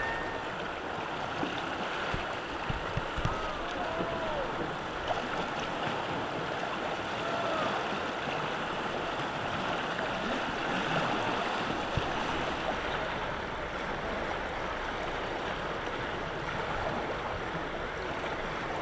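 Whitewater river rapids rushing steadily, with standing waves breaking.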